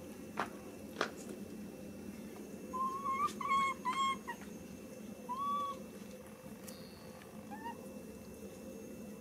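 Long-tailed macaque calling: a run of three short, high-pitched cries about three seconds in, a single cry around five and a half seconds, and a couple of faint short calls near the end. Two sharp clicks come in the first second.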